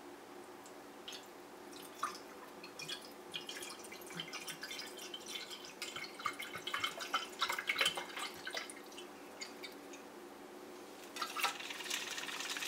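Liquid nickel-plating solution poured from a plastic bottle into a shallow plastic tub, splashing and trickling. It starts about two seconds in, eases off briefly, then comes back heavier near the end.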